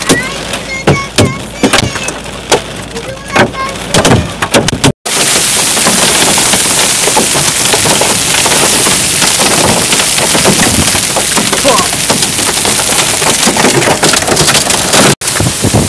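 Hailstones clattering on a car's body and windshield, in quick, irregular sharp knocks. About five seconds in, after a cut, a dense, even hiss of heavy hail and rain pelting the road.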